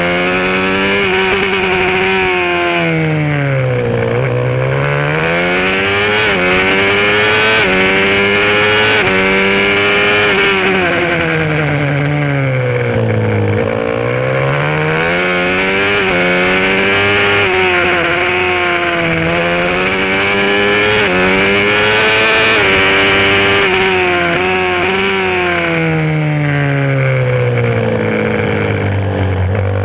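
Supermotard racing motorcycle engine heard onboard at full race pace. Its pitch climbs in steps through gear changes, then drops steeply three times as the bike slows for corners, with wind hiss on top.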